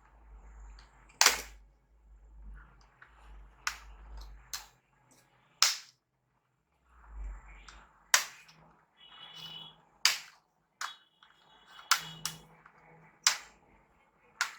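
About ten sharp plastic clicks and snaps at irregular intervals, from a laptop's plastic casing and parts being handled and worked apart during disassembly.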